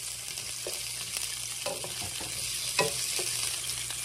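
Sausage frying in oil in a skillet, giving a steady sizzle. A wooden spatula stirs it and knocks against the pan a few times, loudest near the three-second mark.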